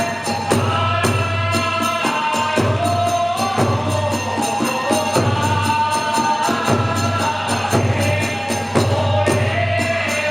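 Kagura hayashi accompaniment: a high bamboo flute playing a held, stepping melody over a fast steady beat of drum and small hand cymbals.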